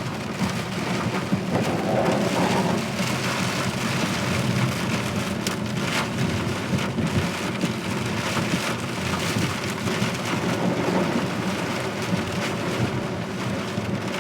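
Heavy rain pelting a moving car, heard from inside the cabin, with the steady hiss of tyres on a waterlogged road.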